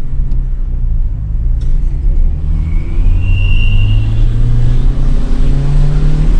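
Fiat Palio 1.0 engine accelerating, its note rising steadily, with a thin high whistle for about a second and a half starting about two and a half seconds in. The whistle comes from a corrugated sink drain hose fitted to the exhaust to imitate a turbo.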